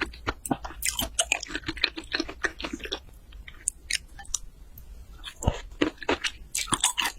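Close-miked chewing of raw seafood: wet, sticky mouth clicks and smacks, thinning out for a couple of seconds midway and picking up again near the end.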